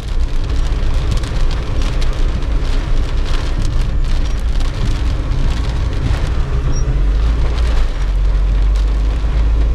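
Rain falling on a car's roof and windscreen, heard from inside the cabin as a steady patter of many small drop ticks, over the low rumble of the car driving on a wet road.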